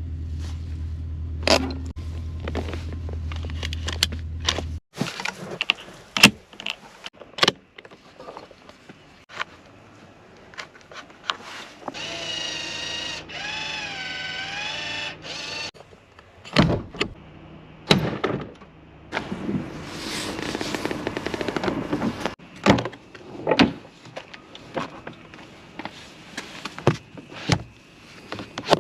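A 1992 BMW E32 7 Series being operated: a low steady hum stops abruptly about five seconds in. Then come a run of clicks and thunks, and about halfway through an electric motor whirs for about four seconds with a wavering pitch.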